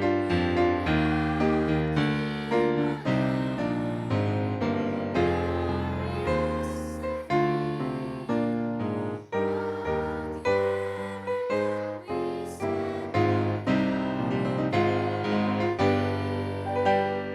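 Piano playing a chordal accompaniment, notes struck in a steady rhythm and left to ring.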